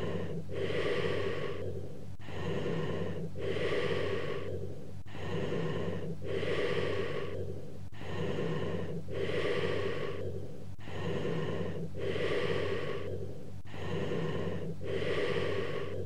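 Cavernous-type bronchial breath sounds heard through a stethoscope over a lung cavity: low-pitched blowing breaths repeating every couple of seconds, with expiration longer than inspiration and a gap between them. A faint steady low hum runs underneath.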